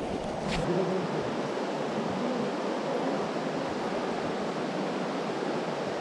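Steady rushing of a mountain stream, an even hiss of flowing water.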